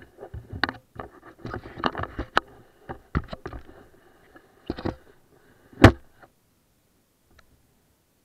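Handling noise on an action camera: irregular knocks, clicks and scrapes as it is jostled, with one sharp knock about six seconds in. No engine is running.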